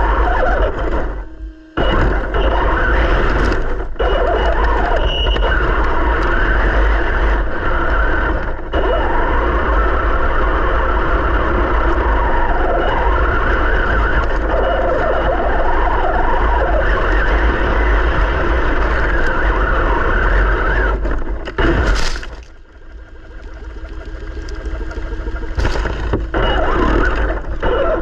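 Traxxas TRX-4 Sport RC crawler driving, heard from a camera on its body: the electric motor and gearbox whine, rising and falling with the throttle, over a heavy low rumble and ground noise. The whine cuts out briefly about a second and a half in. Late on there is a sharp knock, then a pause of about two seconds before it drives on.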